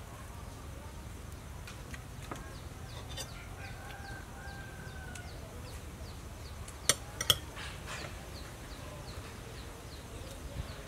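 Quiet outdoor background with faint chirps repeating about twice a second and a faint drawn-out call near the middle. About two-thirds of the way through, a metal spoon clicks sharply twice against the plate of food.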